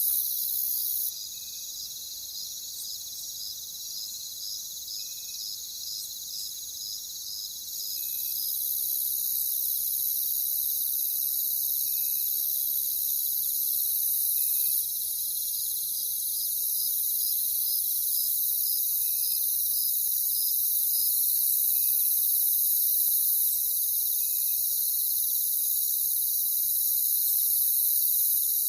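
A chorus of crickets: a dense, steady high-pitched trilling, with a slower chirp pulsing about twice a second through stretches of it and occasional fainter, lower chirps. The chorus drops sharply in loudness about a second in and swells back around eight seconds.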